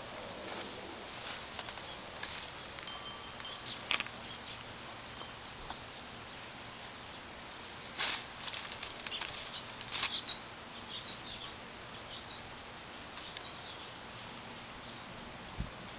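Hens foraging in dry grass and dirt: scattered rustles and sharp pecking clicks over a steady background hiss, the loudest about four and eight seconds in.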